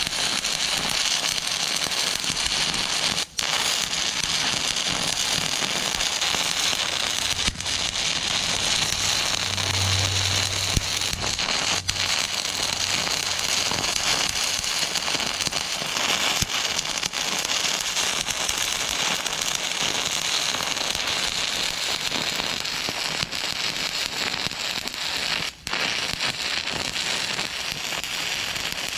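Stick welding arc crackling steadily as a bead is run, with a few momentary breaks in the arc, the longest near the end.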